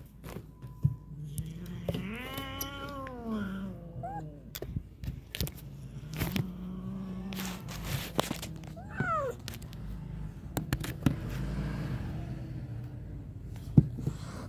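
Domestic cats in a fight standoff: a low, steady growl holds through most of the stretch. A long yowl rises and then falls about two seconds in, and a short yowl slides down in pitch about nine seconds in. Scattered knocks and scuffles come from the cats moving.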